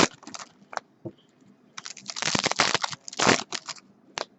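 Foil wrappers of Bowman Chrome football card packs crinkling in several short bursts as they are handled and opened.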